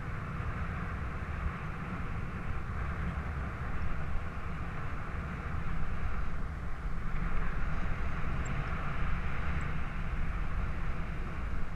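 Wind rushing over the microphone of a camera carried by a paraglider in flight: a steady rush with a low rumble, growing a little louder about halfway through.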